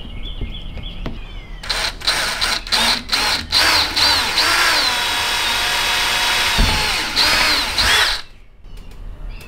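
Power drill driving a screw into the truck's sheet metal. It comes first in several short bursts, then runs for about four seconds with its pitch rising and dipping, and stops sharply.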